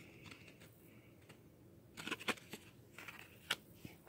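Faint handling of baseball trading cards: a few short, soft clicks and rustles as the cards are moved in the hand, in a cluster about halfway through and once more near the end.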